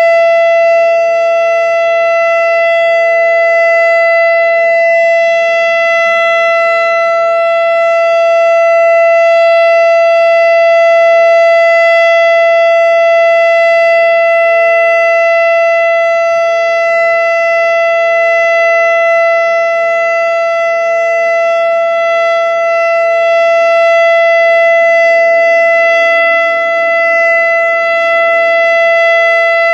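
American Signal Quadren Q-3200 electronic warning siren sounding its steady alert signal: one loud, unchanging pitch rich in overtones, with a fainter, lower steady tone wavering beneath it.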